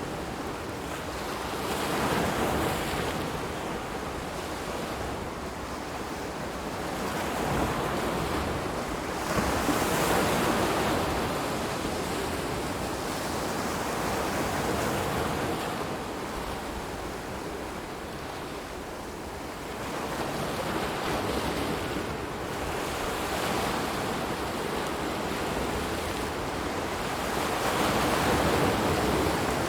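Waves breaking and washing in, a steady rushing of water that swells and falls back every few seconds.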